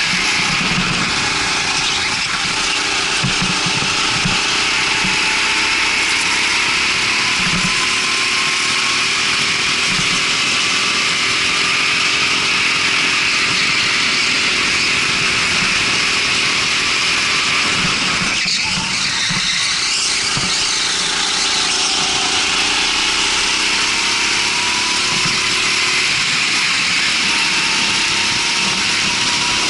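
Rental go-kart engine running at speed on the track. Its pitch climbs slowly, drops briefly about two-thirds of the way through, then climbs again, over a steady hiss.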